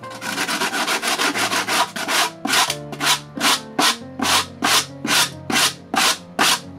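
Hand sanding the edge of a black 3D-printed plastic part with a sanding block, smoothing it for gluing. A scratchy rubbing at first, settling into quick back-and-forth strokes at about three a second.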